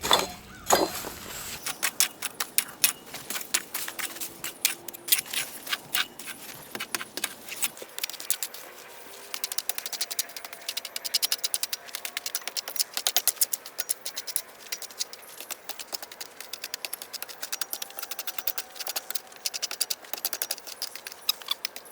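Hand tool scraping and rattling against gritty soil and concrete block at the base of a cinder-block pier, a dense run of short clicks that quickens about halfway through.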